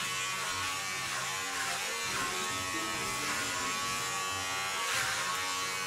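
Electric hair clipper running with a steady buzz as it cuts short hair.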